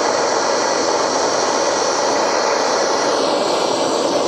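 Steady hiss of a gas blowtorch flame played into a dishwasher pump motor that is burning out under power.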